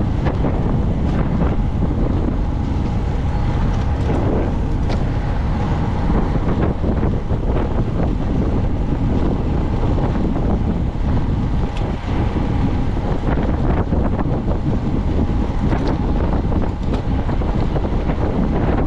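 Wind buffeting the microphone of a camera carried on a racing bicycle at speed: a loud, steady low rush.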